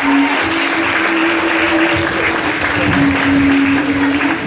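An audience applauding steadily over music that holds long notes, the pitch stepping up and down a few times.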